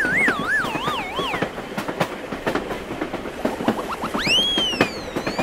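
Cartoon train clattering along the rails with repeated clicks, overlaid by whistle-like sound effects: a wavering tone sliding downward in pitch at the start, and two arching rise-and-fall glides about four seconds in, as balls hop up out of the wagon.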